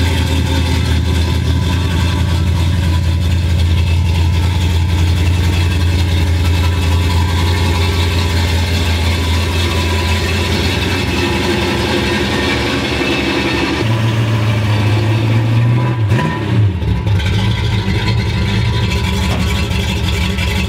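Hot-rod small-block Chevy V8 with a great big cam and high compression, in a 1964 Chevy Nova SS, idling loud and steady. About 14 seconds in the idle rises, with a short rev near 16 seconds as the car pulls away.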